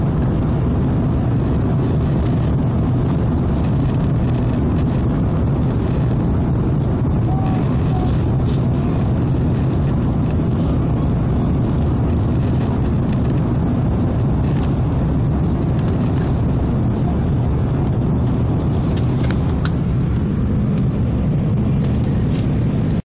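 Steady low rumble of engine and airflow noise inside the passenger cabin of an Airbus A330 airliner during its climb after takeoff.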